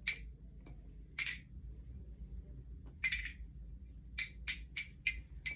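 Small Fulp balisong being flipped, its metal handles clacking shut in sharp clicks. A few come spread apart, then a quick run of five, about three a second, near the end.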